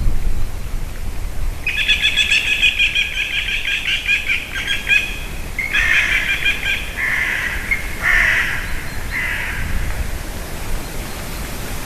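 Wild birds calling: a fast chattering series of high calls about two seconds in, lasting about three seconds, then a few shorter, harsher calls.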